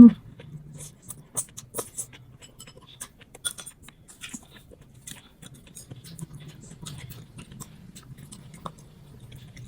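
Close-miked chewing of a mouthful of boiled water spinach dipped in fish sauce: a long, irregular run of small crunches and wet mouth clicks.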